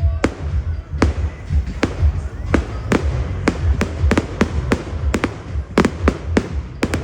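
Fireworks display: a quick, irregular string of sharp bangs, about two or three a second, over a steady low rumble.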